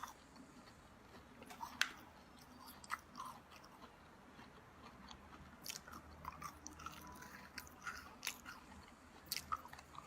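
A person biting and chewing amber sugar candy close to the microphone, quietly, with scattered sharp crisp clicks as the candy's sugar crust cracks.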